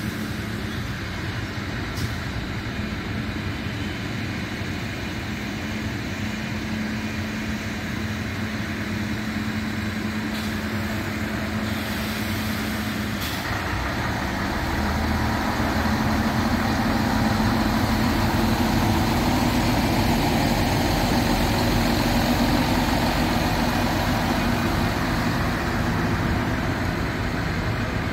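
Regional diesel railcar train pulling out past the platform: engines running with a steady low hum over the rumble of the wheels on the rails, getting louder about halfway through as the last railcar passes close.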